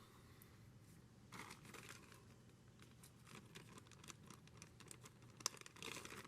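Faint handling noise: light rustles and small clicks, as of parts being picked up and moved, with one sharper click about five and a half seconds in.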